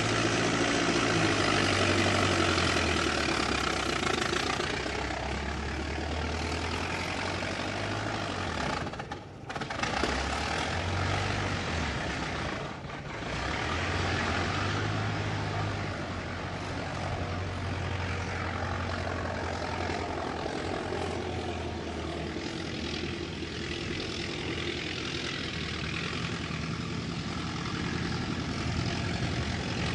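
Old car engine running, its low hum shifting up and down in pitch a few times. The sound drops out briefly twice, about nine and thirteen seconds in.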